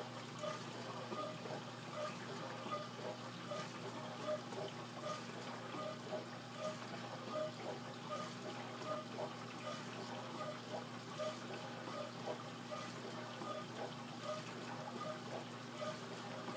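Dishwasher running its wash cycle: water spraying and splashing inside the tub over a steady low hum from the pump motor.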